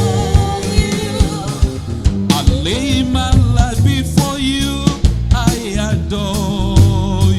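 Gospel worship band music with a drum beat and a singer's wavering, held notes over it.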